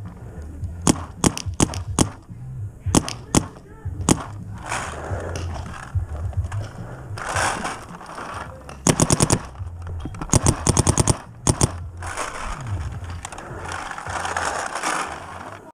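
Paintball markers firing: scattered single shots through the first few seconds, then two rapid strings of shots about nine and ten-and-a-half seconds in.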